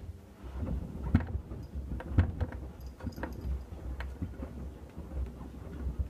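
Hoover WDYN 11746 PG8 washer-dryer's drum tumbling a heavy load of rugs and shoes in sudsy rinse water: a low rumble with sloshing water and sharp knocks of the load dropping, about once a second.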